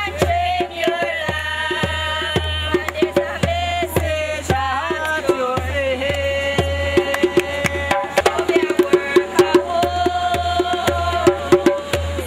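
Music with a steady, regular drumbeat and low bass pulses under a held, wavering melody.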